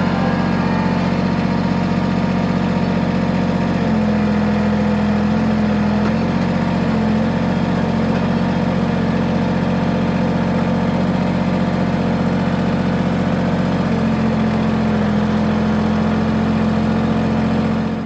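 Kubota compact tractor's diesel engine running steadily up close while its front-loader grapple sets a log onto the sawmill bed. The engine note brightens a little about four seconds in and again near the end.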